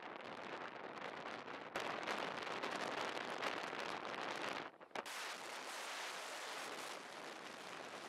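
Wind rushing over the microphone of a camera moving along the road, a steady hiss that jumps louder about two seconds in and drops out briefly just before five seconds in.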